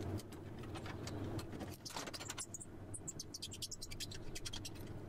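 Small metallic clicks and clinks as a loose cast iron window handle and its little fittings are worked free from the frame by hand, coming thickest in a quick flurry about two seconds in.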